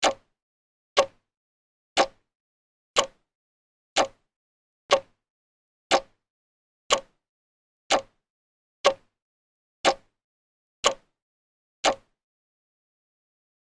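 Clock ticking, one sharp tick a second, stopping about twelve seconds in.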